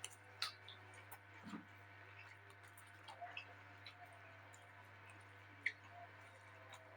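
Faint eating sounds: quiet chewing and scattered small clicks, with one sharper click about five and a half seconds in, over a steady low hum.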